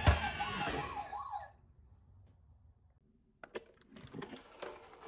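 Electronic siren of a toy ambulance minicar, a quickly wavering tone, under a loud knock at the start; it cuts off about a second and a half in. After a short pause, irregular plastic clicks and rattles start about three and a half seconds in.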